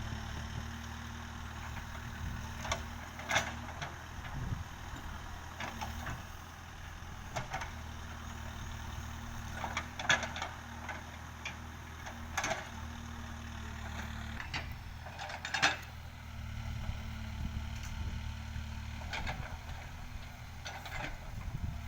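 Backhoe loader's diesel engine running steadily, with scattered sharp knocks every few seconds.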